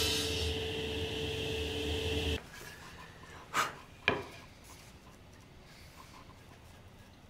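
SawStop table saw running as its blade cuts through the wall of a hardwood box, a steady machine hum with the hiss of the cut. It stops abruptly about two and a half seconds in, and then comes a quiet stretch with two short knocks of wood set down on a bench.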